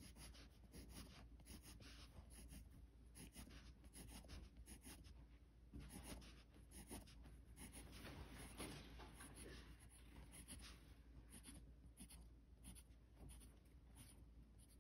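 Faint scratching of a pencil on sketchbook paper in many quick, short, irregular strokes as a row of spikes is sketched.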